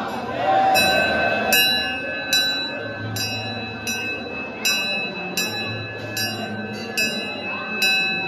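Large hanging brass temple bell struck over and over during aarti, a steady beat of about one strike every three-quarters of a second, each ring running on into the next. A crowd's voices sound underneath.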